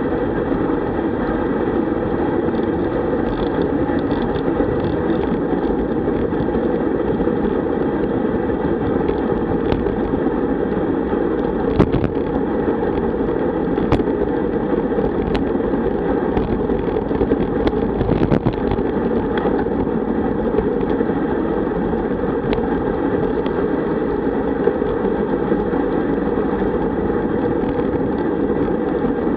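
Steady wind rush buffeting a bike-mounted camera's microphone at road-bike speed, around 40 km/h, mixed with tyre and road noise. A few sharp clicks or knocks come through around the middle.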